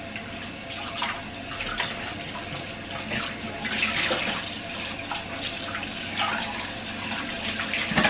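Kitchen tap running into a stainless steel sink while bowls are rinsed by hand, the water splashing off the dishes, with light knocks of crockery and a louder clunk near the end.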